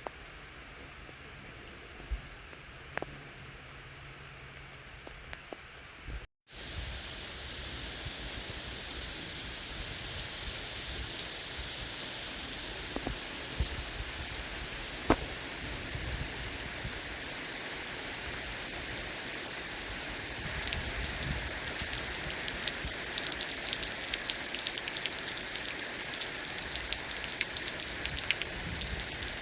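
Steady rain falling. There is a brief cut about six seconds in, and the rain is louder after it; about twenty seconds in, the patter turns denser and heavier.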